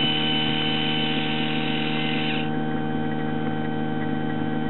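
Ballast pump of a wakeboard boat running with a steady hum as the ballast system fills. Over it, the electric ball valve's small actuator motor whines as it drives the valve open, stopping about two and a half seconds in.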